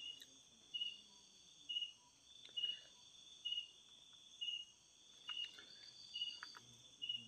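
Night-time insect chorus: a steady high-pitched trill underneath, with a short chirp repeating about once a second.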